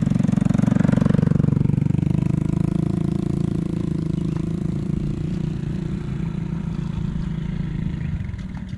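A small engine running steadily with a rapid even pulse. It is loudest about a second in, then slowly fades.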